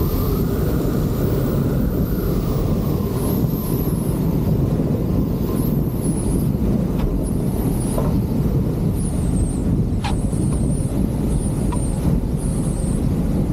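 Piper J3 Cub's 65-horsepower engine running through a crosswind wheel landing, mixed with heavy wind rush on a microphone mounted on the tail in the slipstream. The sound is a steady, dense rumble.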